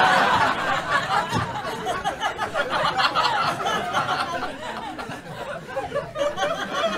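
A crowd of people laughing hard at a punchline, loudest at the start and easing off a little after the middle, with the comedians on stage laughing too.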